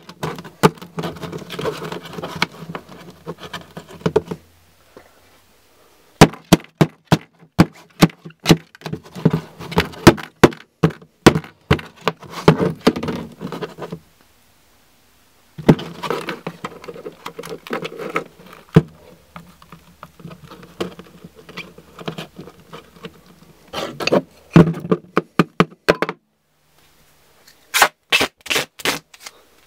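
Objects being handled and set down on a hard tabletop: quick runs of sharp knocks, taps and scrapes with rustling between them. The sound comes in several stretches that cut off suddenly about 4, 14 and 26 seconds in, and ends with a burst of rapid clicks.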